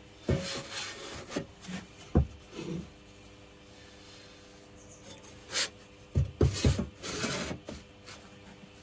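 Scattered knocks and scraping as workshop parts are handled, with a sharp knock about two seconds in and a quick run of knocks near the end, over a faint steady hum.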